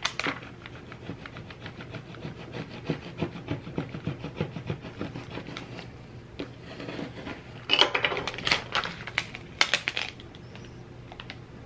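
A plastic scraper rubbed back and forth over transfer tape laid on vinyl lettering, a run of quick scratchy strokes, burnishing the tape so it grabs the letters. From about eight seconds in, louder crinkling of the clear plastic transfer sheet as it is handled and peeled up.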